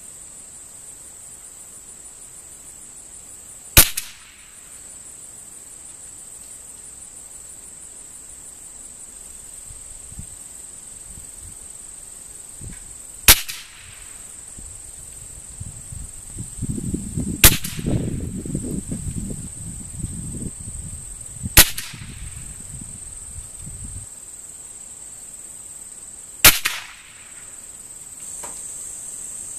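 .22 rimfire target rifle firing five single shots, several seconds apart, each a sharp crack. A steady high insect buzz runs underneath.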